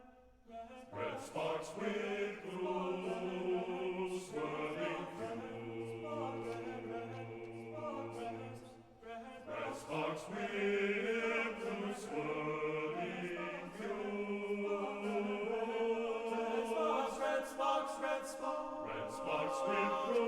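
Men's tenor-bass chorus singing in several parts. The singing enters about a second in and breaks off briefly near the middle.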